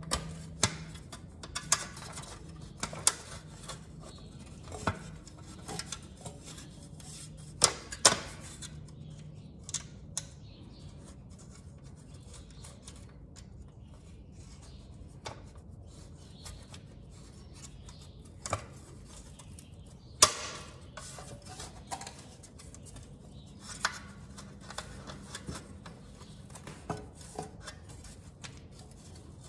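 Scattered small metallic clicks, taps and scrapes of a nut and fingers working against a motorcycle's metal skid plate as the nut is fitted by hand, with a few sharper knocks, the loudest about 8 and 20 seconds in.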